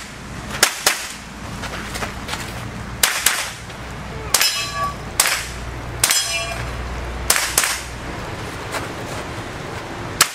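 About ten .22 rimfire rifle shots, some in quick pairs, fired at a practical-shooting stage. After two of the shots a steel target rings for about half a second.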